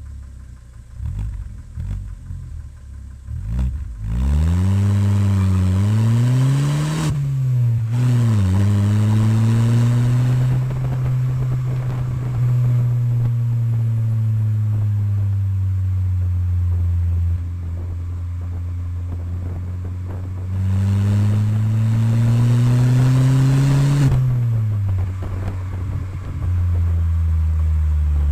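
Chevrolet Vectra four-cylinder engine through a loud aftermarket exhaust, rumbling unevenly for a few seconds and then revving. The engine note climbs and drops several times, with a long steady stretch in the middle.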